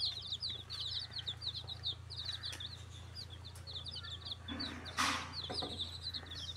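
A brood of chicks peeping without pause, a dense run of short high chirps. A steady low hum runs underneath, and there is a brief rustle about five seconds in.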